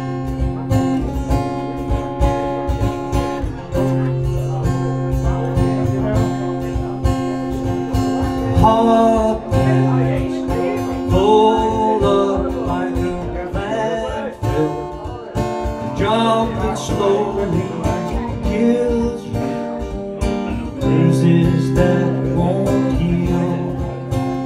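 Acoustic guitar played live with a steady accompaniment, and a man starts singing over it about eight seconds in.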